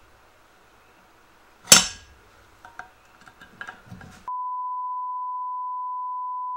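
A sharp, loud metal clank about two seconds in, followed by a few light clinks of tools on the gear. After about four seconds a steady pure beep tone starts and holds: a censor bleep dubbed over a frustrated remark.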